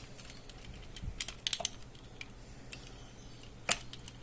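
Plastic parts of an Optimus Prime 8818-D transforming robot toy clicking as pieces are folded and snapped closed: scattered light clicks, a quick run of them about a second and a half in, and one sharper click near the end.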